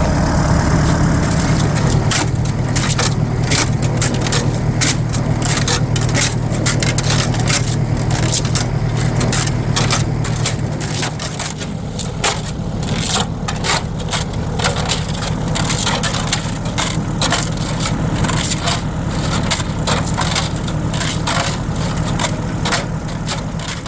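Rusty tractor gas tank tumbling round and round on a motor-driven spinning rig: a steady running hum with loose contents clattering and rattling inside the tank as they knock rust free.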